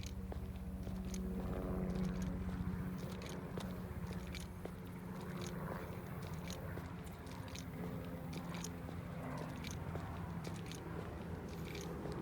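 Background noise in a pause: a steady low hum with scattered sharp clicks and crackles throughout, and no speech.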